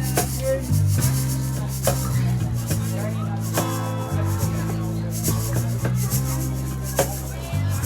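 Instrumental passage of a live acoustic band: low held chords changing every second or two, under a fast, even shaker rhythm with a few sharp percussion hits.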